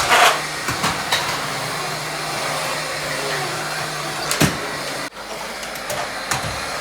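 Vacuum cleaner running steadily, with a few short knocks and bumps as it is pushed around.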